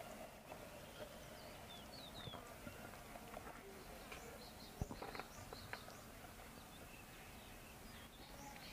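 Faint outdoor ambience with small birds chirping now and then in short high calls. A few sharp clicks come about halfway through, the loudest just before the five-second mark.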